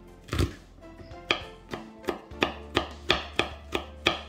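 Kitchen knife mincing garlic on a plastic cutting board: a couple of separate knocks, then steady chopping at about three strokes a second from about halfway through.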